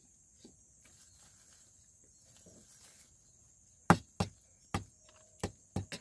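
Metal spoon clicking against a plastic bowl as food is cut and scooped in it: quiet at first, then about six sharp clicks in quick succession in the second half.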